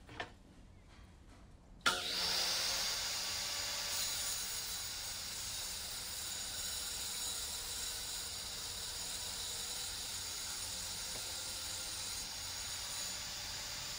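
Jobsite table saw switched on about two seconds in, then running steadily with a high whine as it rips a colored patterned plywood panel.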